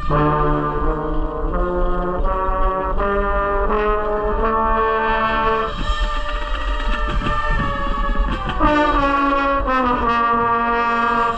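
A drum corps brass line plays loud sustained chords that step from one to the next, sliding down in pitch near the end.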